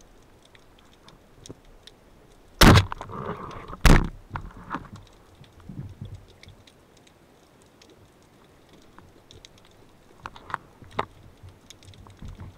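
Band-powered speargun firing underwater: a sharp, loud thunk about two and a half seconds in, then a second hard knock just over a second later. Faint scattered underwater clicks and crackles run throughout.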